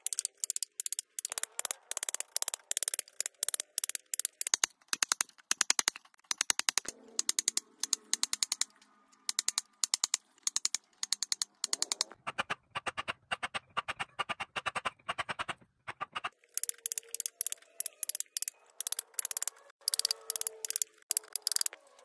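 Mallet striking a wood-carving chisel in quick, even taps, about four or five a second, with a couple of short pauses.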